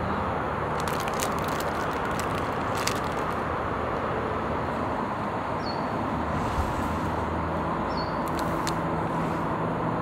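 Steady hiss of distant road traffic. A few light clicks come about one to three seconds in, and two brief high chirps come later.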